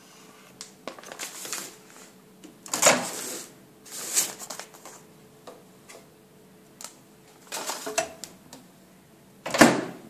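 Paper microwave popcorn bag rustling and crinkling as it is handled, in several short bursts, with a sharp clack near the end.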